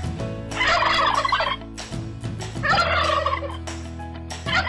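Domestic tom turkey gobbling: three rapid rattling gobbles about two seconds apart, the last starting near the end.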